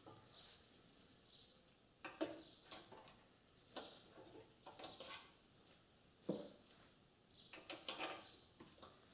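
Faint, irregular clinks and knocks of metal parts and a hand tool as a motorcycle footrest bar is worked into line through the engine and frame, about half a dozen short knocks with the loudest near the end.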